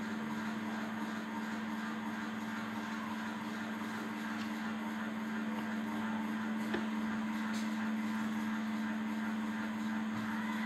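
A steady low machine hum of one unchanging pitch over faint room noise, with a single faint click about seven seconds in.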